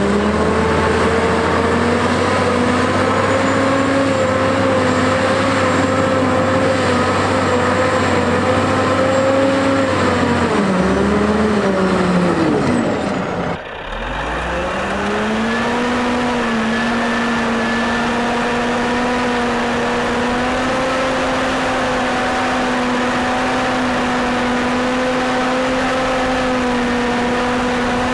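Heavy diesel engine of a Caterpillar 988A wheel loader running at a steady high speed. About ten seconds in its pitch sags and falls away steeply, then climbs back within a couple of seconds and holds steady again.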